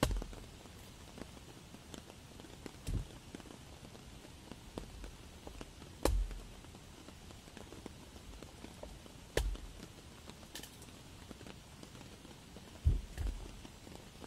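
Hatchet chopping into a fallen log: five dull chops, roughly three seconds apart, over a faint steady hiss.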